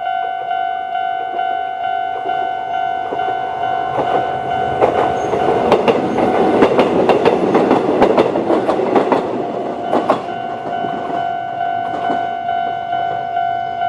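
Level-crossing alarm sounding the older-type standard bell tone, a ding repeating about twice a second throughout. A Kōnan Railway 7000-series train passes over the crossing from about four seconds in until about eleven, its wheels clacking over the rail joints, loudest near the middle.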